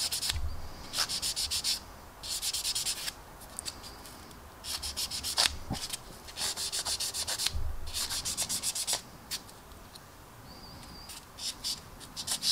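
Fine sanding stick rubbed in rapid short strokes over the clear plastic canopy of a 1/32 Tamiya F-16CJ model, sanding out the canopy's centre seam line. The sanding comes in bursts of about a second with short pauses between.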